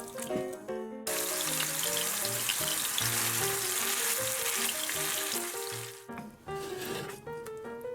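Minced stingray patties (sangayaki-style, with ginger and miso) sizzling as they fry in a pan. The sizzle starts abruptly about a second in and fades out near six seconds, over background music with piano-like notes.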